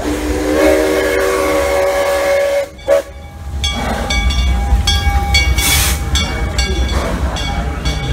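Steam locomotive whistle blowing a chord for about two and a half seconds, then the locomotive running past with a burst of steam hiss about halfway through, over a steady low rumble.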